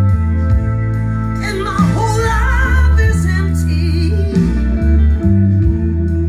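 A song with singing, guitar and heavy bass, played loud through a large speaker stack driven by a power amplifier during a sound-system test. A singer's voice with vibrato rises over the band about two seconds in.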